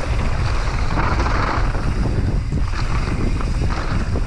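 Wind buffeting the action camera's microphone as a mountain bike descends a dirt trail at speed, with the tyres rolling over dirt and dry leaves and the bike rattling over bumps.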